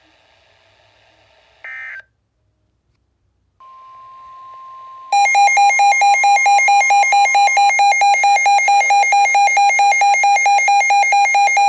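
Emergency Alert System alert tones between severe thunderstorm warnings. A brief data burst is followed by a steady single alert tone. About five seconds in, a loud, rapid electronic alarm beeping of about four beeps a second joins it and carries on after the steady tone stops.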